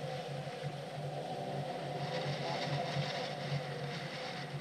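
Ford Focus RS's 2.3-litre turbocharged four-cylinder running at low revs as the car rolls slowly, a steady low drone heard from the roof. A higher hiss grows over it about halfway through.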